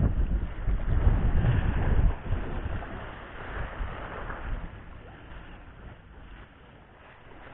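Wind buffeting the microphone over sea waves washing around the wader, loudest in the first two seconds and then easing off.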